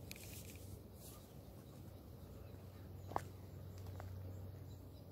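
Quiet outdoor background with a low steady rumble, broken by a sharp click about three seconds in and a fainter click about a second later.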